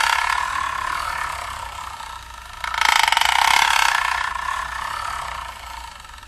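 CNC milling machine cutting metal with a fast chattering rattle. It comes in two passes: loud at first and fading, then louder again about three seconds in and fading away.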